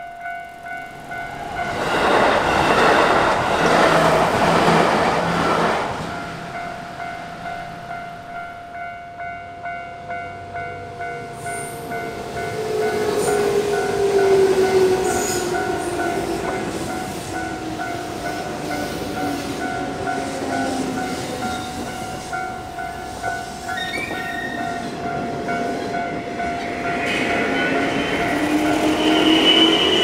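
Japanese level-crossing warning bell ringing steadily in a repeating pulse while electric trains cross. A white Yamatoji Rapid train rumbles through with a whine that falls in pitch. Near the end a green 201-series train arrives with a rising whine.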